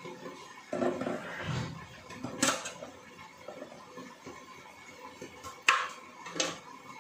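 Kitchenware handled off to the side: a muffled clatter about a second in, then three sharp clinks and knocks, the loudest a little before the end.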